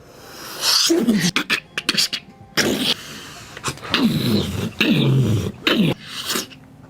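A person making mouth sound effects: a quick run of clicks, hissing bursts and several falling voiced swoops.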